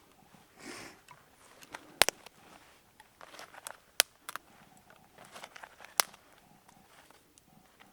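Three sharp snaps or clicks, evenly about two seconds apart, with soft rustling and small ticks between them.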